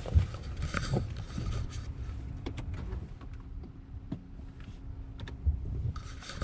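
Handling noise inside a parked car: scattered clicks and knocks as the camera is moved and repositioned, over a low steady rumble.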